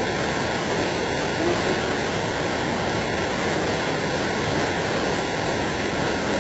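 Steady rushing noise of water from the flooding and torrential rain, even and unbroken, with faint voices under it.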